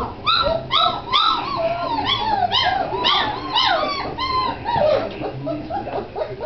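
Great Dane puppies yipping and whining: many short high cries that rise and fall, coming several a second and overlapping, then thinning out after about five seconds.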